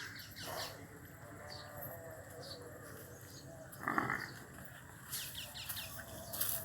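Murrah water buffalo lowing faintly, with one short, sharper noise about four seconds in.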